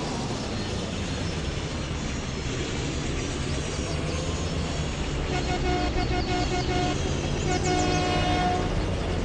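GAZ vehicle running with a steady low engine rumble; about five seconds in, a pitched whine with overtones joins it and cuts in and out several times.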